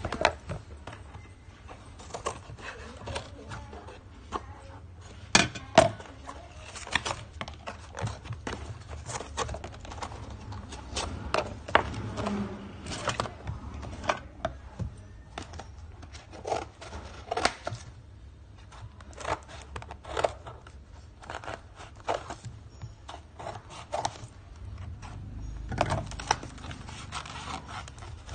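Paper and cardboard handled and folded by hand against a wooden tabletop: rustling and creasing with light knocks and clicks at irregular intervals.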